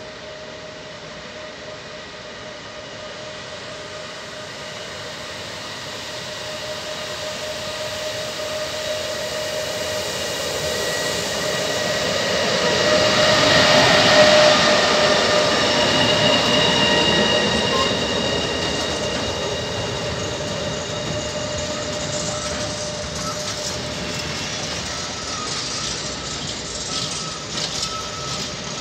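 Bombardier TRAXX electric freight locomotive E494 571 approaching and passing close by, with a steady whine over the rolling noise. The sound grows to its loudest about halfway through as the locomotive goes past, then eases into the rumble of a string of tank wagons rolling by, with clicks from the wheels over the rails near the end.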